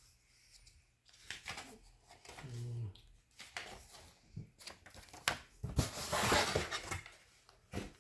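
Packaging being unwrapped by hand: scattered rustles and light knocks, with a longer, louder crinkling rustle about six seconds in.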